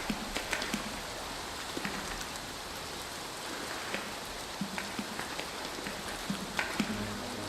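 Steady rain falling, an even patter with scattered louder drops.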